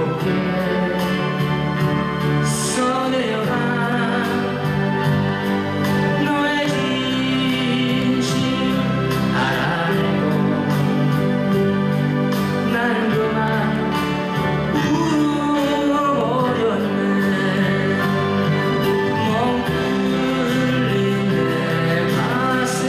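Live ballad: a singer with acoustic guitar over steady, sustained backing chords.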